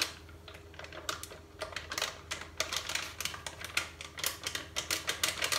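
Plastic cocoa packet crinkling as it is squeezed and handled over a pot: quick, irregular crackles that come thicker after about two seconds.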